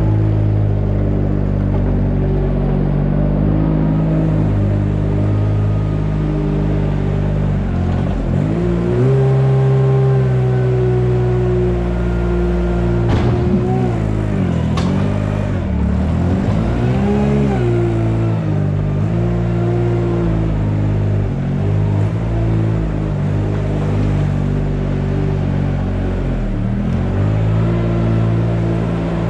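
An engine running steadily, its speed dipping and picking up again several times.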